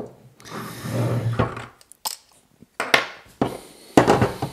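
Workbench handling noise: a soft rustle for about a second, then several sharp knocks and clicks as metal parts of a velomobile's aluminium suspension leg and drum brake are picked up and moved on the worktop.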